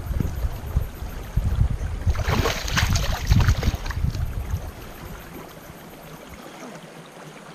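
Creek water splashing and sloshing as hands dig gravel under the water, with a low rumbling underneath. The splashing is heaviest in the middle and dies away after about four and a half seconds, leaving the quieter steady rush of the flowing creek.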